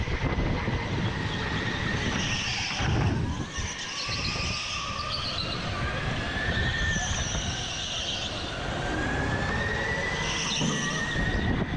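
Indoor go-kart running flat out, heard from onboard: a steady motor note with a thin whine that rises and falls with speed, and short high bursts of tyre squeal several times as it corners.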